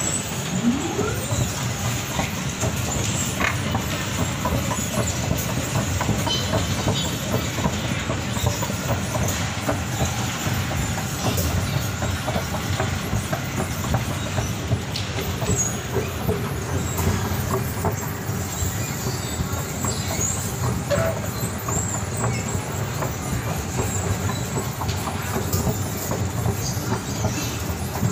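Escalator running: a steady low rumble of the moving steps and step chain, with a dense, continuous rattle of small clicks. The escalator has a broken handrail chain.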